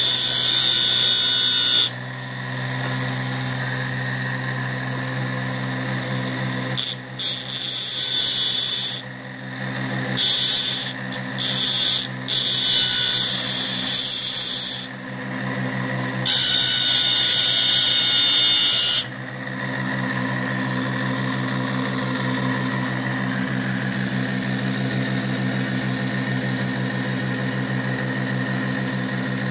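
A universal motor rewired as a pulse motor running with a steady electric hum. A harsh high-pitched hiss cuts in and out four times over the first twenty seconds, then the motor hums on alone.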